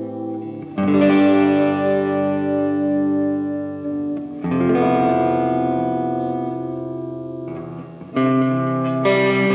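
Guitar music: sustained chords, a new one struck about a second in, another after about four and a half seconds, and two more near the end, each left to ring.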